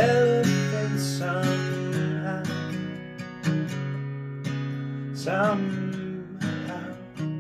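Acoustic guitar strummed and picked in an instrumental passage of a song, with no singing, a few notes sliding in pitch.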